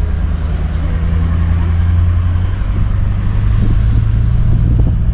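Four-wheel-drive vehicle's engine running steadily while driving on beach sand, heard from inside the cabin along with tyre and body noise. The engine note rises slightly about halfway through.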